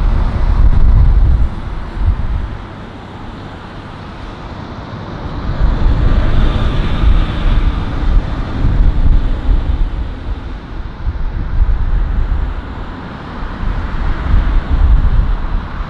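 Boeing 777-300ER's GE90 jet engines on final approach: a steady jet rumble that grows louder about five seconds in, with a high fan whine near the middle. Wind buffets the microphone.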